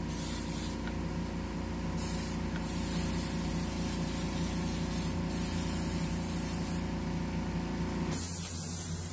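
Gravity-feed airbrush fitted with a fan cap hissing as it sprays grey paint through a plastic skull stencil. The hiss breaks briefly a few times as the trigger is let off and then stops about eight seconds in. A steady low hum runs underneath and stops along with the hiss.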